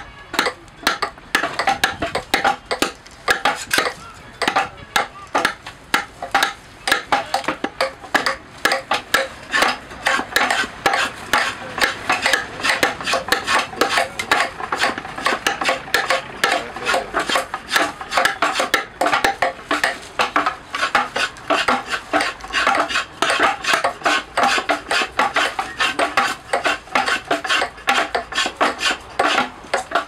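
Hand adze chipping and shaving a wooden djembe shell: a steady run of short, sharp cutting strokes, several a second, each with a scraping edge as the blade bites into the wood.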